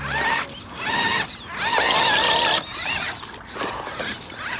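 FTX Ravine RC crawler's electric motor and drivetrain whining in several short throttle bursts as it is stuck in mud, the pitch rising at the start of each burst, with the wheels churning in mud and water. The longest and loudest burst comes about two seconds in.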